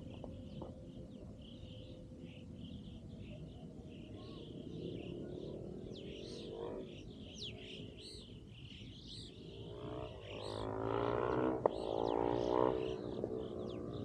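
A flock of Alpine choughs calling with many short, high chirps and whistles. About ten seconds in, a passing engine swells into a buzzing drone, the loudest sound, and fades about three seconds later.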